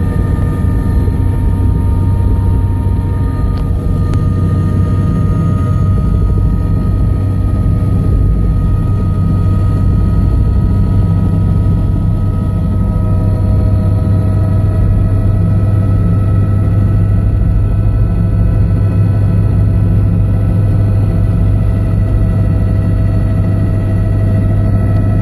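Helicopter turbine engine and rotors running steadily on the ground, heard from inside the cabin: a loud low drone with a thin high whine above it.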